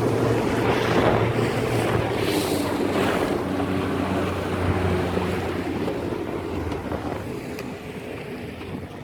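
Small boat's engine running steadily, with water rushing past the hull and wind on the microphone; the engine grows quieter over the last few seconds.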